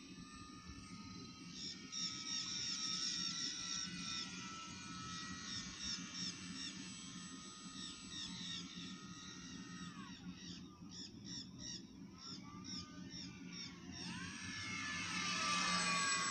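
Radio-controlled model airplane's motor whining, its pitch gliding down and back up as the plane makes a loud low pass near the end. Birds chirp in quick repeated notes through the first half.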